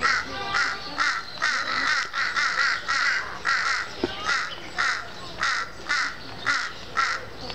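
Jungle crows cawing in a steady run of calls, about two a second, as they mob a wild cat.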